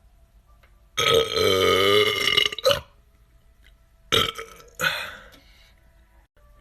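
A man belching: one long, loud burp of about a second and a half with a wavering pitch. A second or so later come two shorter, sudden sounds, the second fading out.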